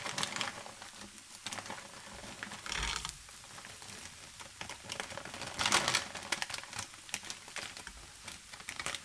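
Handfuls of sultanas being dropped into a pan of frying kumara and onion: a run of light clicks and rustles, with two louder bursts about three and six seconds in.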